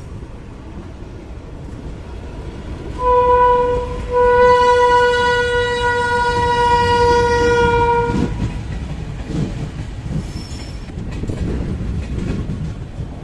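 Indian Railways locomotive horn: a short blast about three seconds in, then a long blast of about four seconds, over the steady rumble and wheel clatter of the moving train.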